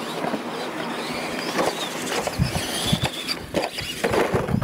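Radio-controlled monster trucks racing on dirt: their electric motors whine, rising and falling, with several low thumps of the trucks hitting the ground in the second half.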